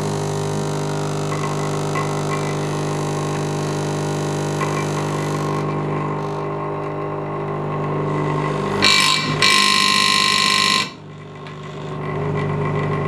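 Large industrial electromagnetic vibrator buzzing as its controller's speed knob is turned up from minimum, with a screwdriver held against it. About nine seconds in it breaks into a loud, harsh rattle for about two seconds, cuts off suddenly, then the buzz builds again. The speed now changes smoothly with the controller's replaced potentiometer.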